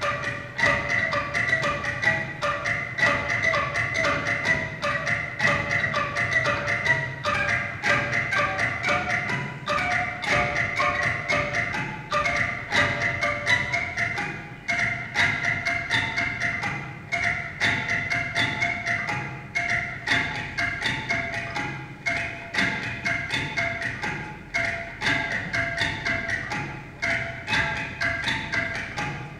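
A motor-turned tube studded with plastic cable ties, the ties flicking against tin cans and jars held to it, makes a dense, rapid clicking rhythm with pitched ringing tones from the cans.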